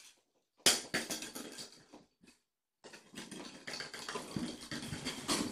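Kittens scuffling and scampering on a hard floor: scratchy rustling with short knocks. It starts with a sharp knock about a second in, pauses, and then runs on in a longer stretch from about three seconds in.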